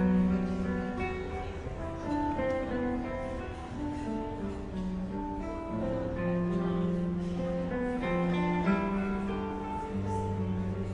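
Background music led by plucked acoustic guitar, a run of single notes over a held bass.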